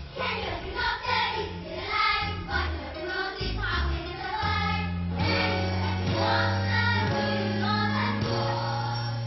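Children singing together over instrumental accompaniment with held bass notes.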